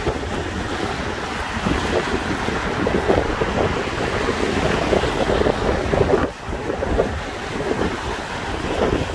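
Wind buffeting the microphone: a loud, uneven rushing rumble that swells in gusts and briefly drops about six seconds in.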